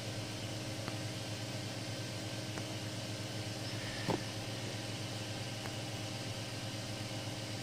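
3D printer's cooling fans running with a steady hum after a finished print, with one light knock about four seconds in.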